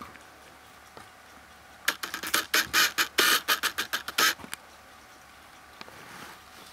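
A dog gnawing a dried chew bone: a run of irregular crunching, crackling clicks lasting about two and a half seconds, starting about two seconds in.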